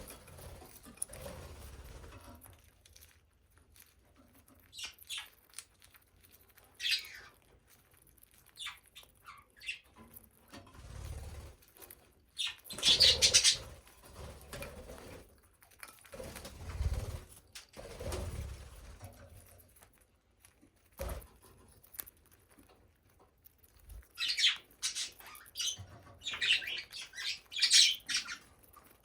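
Budgerigars giving short, scattered chirps, with bouts of wing fluttering and soft knocks. The chirping is loudest about halfway through and comes thick again near the end.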